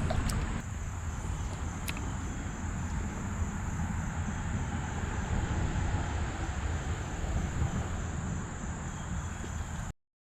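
Steady chorus of insects, a constant high-pitched drone, over a low steady rumble. The sound cuts off suddenly near the end.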